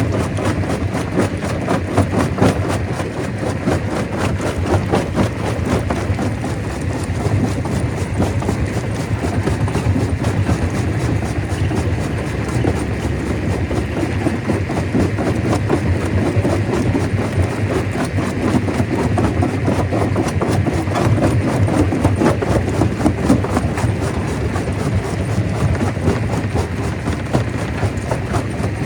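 Stone crusher running: a steady low rumble under a dense, unbroken clatter of rock knocking through the machine.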